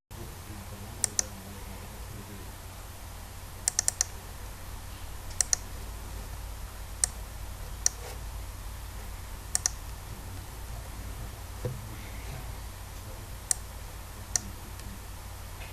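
Sharp, irregular clicks, some single and some in quick clusters of two or three, over a steady low hum.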